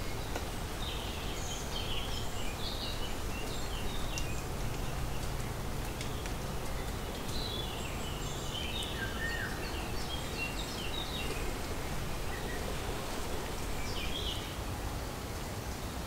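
Small birds chirping in short scattered calls over a steady low rumble and hiss of light rain and wind in woodland, with the odd sharp drip.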